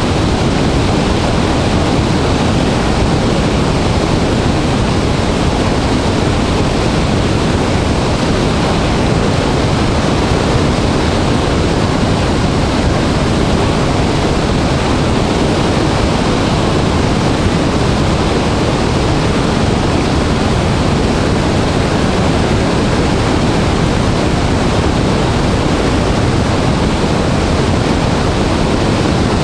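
Dray Nur Waterfall in high flow, a large volume of water pouring down with a loud, steady rushing roar.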